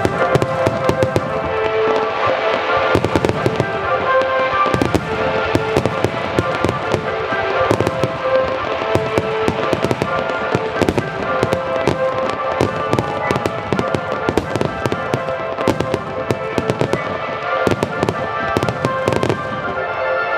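Fireworks display: aerial shells bursting in quick succession, a dense run of bangs and crackles over music playing through loudspeakers. The bursts stop about a second before the end while the music carries on.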